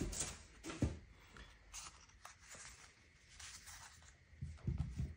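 Faint rustling and clicking of a stack of paper index cards being handled and pried apart by hand, with a couple of soft knocks on the desk mat about a second in and near the end.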